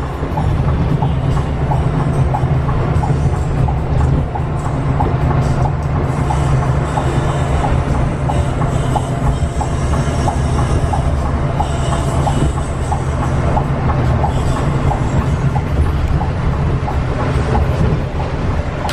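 Inside a moving intercity bus: the engine and the tyres on the road make a steady low drone, with faint regular ticking over it.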